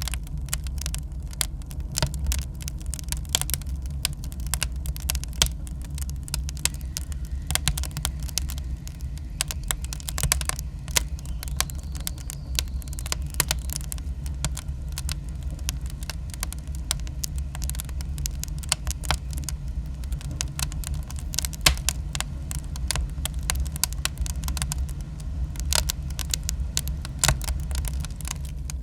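Fire crackling: irregular sharp pops and snaps coming several times a second over a steady low rumble.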